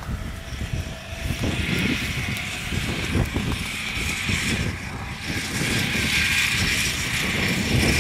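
A motor vehicle's engine running, with wind buffeting the microphone in gusts.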